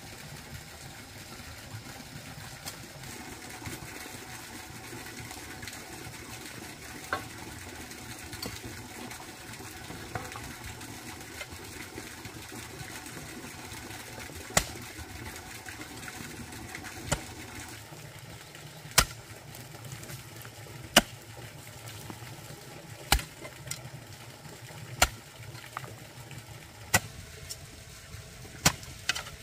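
Steady low background rumble. From about halfway, sharp knocks repeat evenly about every two seconds.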